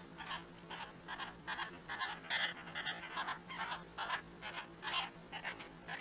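Red-bellied woodpecker pecking at dried corn kernels in a wooden feeder: an irregular run of short, dry taps and crunches, several a second, over a faint steady hum.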